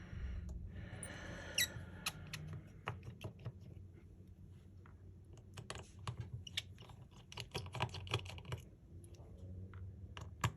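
Irregular run of small sharp clicks and taps from hand tools and parts being handled on an opened Samsung Galaxy S23 Ultra during disassembly, just after its battery connector is unclipped.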